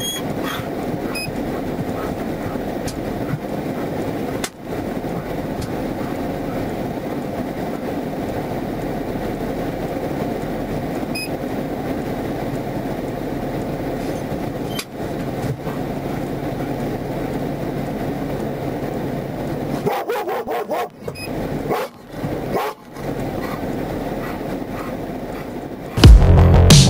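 Steady rumble of idling vehicles and road traffic heard through a patrol car's dashcam, with a few short dropouts about three quarters of the way through. Loud electronic music cuts in suddenly about a second before the end.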